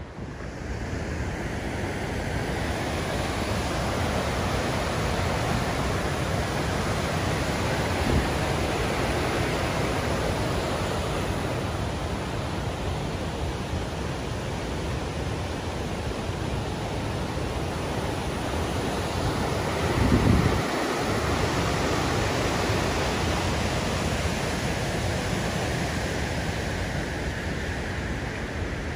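Steady rush of a fast-flowing mountain river. About twenty seconds in there is one brief low thump of wind on the microphone.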